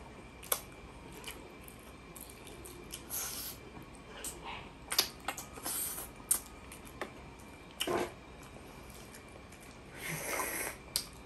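Quiet eating sounds of balut: scattered mouth clicks and smacks while chewing, with a few short slurping bursts, one near the end as an egg is sipped from.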